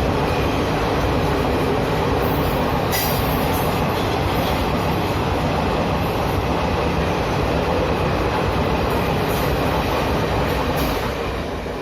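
Express train of ICF passenger coaches running through the station at speed without stopping, a steady loud rush of wheels on the rails with some clicks and rattles, dying away near the end.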